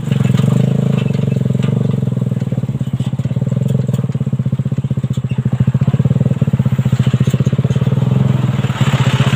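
Suzuki Satria FU 150cc single-cylinder motorcycle engine running in a homemade buggy at a steady pace. About halfway through, its note turns into a pronounced regular throb.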